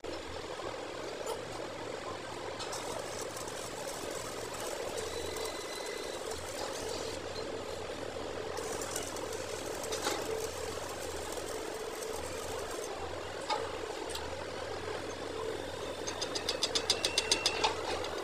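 Stick (arc) welding on an excavator track roller: the electrode arc crackling and hissing steadily over the hum of the welding set. About sixteen seconds in it gives way to rapid metallic tapping, about seven taps a second and growing louder, as the slag is chipped off the fresh weld.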